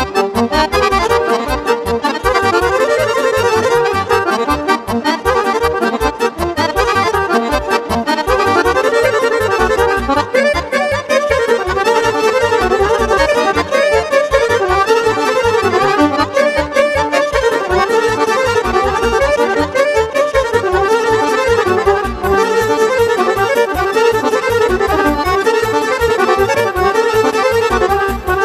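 Instrumental Romanian party music: a Roland digital accordion plays a busy melody over a keyboard accompaniment with a steady bass beat.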